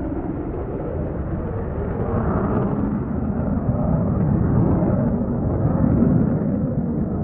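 Jet fighter engine noise: a steady low rumble without a clear pitch, growing a little louder about two seconds in.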